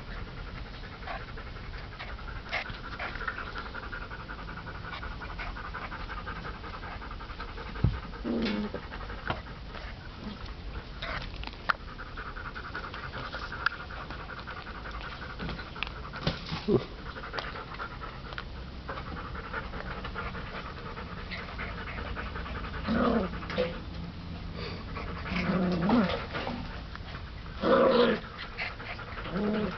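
Airedale terrier puppies panting steadily while playing, with scattered short clicks and taps. Several short puppy vocal sounds come in the last few seconds.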